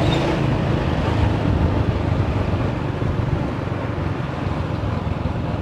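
Motorcycle engine running steadily while under way, with wind rushing over the microphone.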